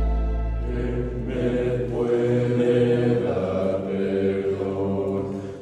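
A choir of young men singing a cappella in harmony, holding long notes, while ambient intro music fades out during the first two seconds.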